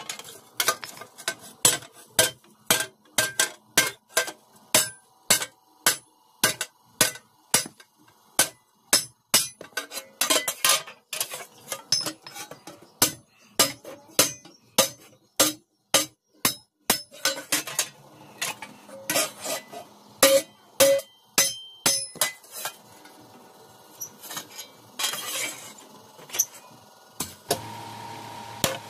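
Hand hammer beating a red-hot iron plate on an anvil block, blows about three every two seconds with a clanging ring. After about 17 seconds the blows thin out into scattered lighter knocks and clinks, and a steady hum starts near the end.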